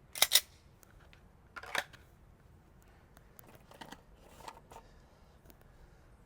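A few sharp handling clicks and knocks: two loud ones in quick succession just after the start, another about a second and a half in, and fainter ones around four seconds.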